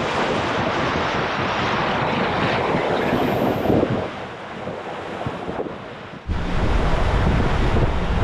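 Rough sea rushing and breaking alongside a sailing catamaran's hull under way, with wind on the microphone. The rushing eases about four seconds in, and about six seconds in a louder, low wind rumble on the microphone takes over.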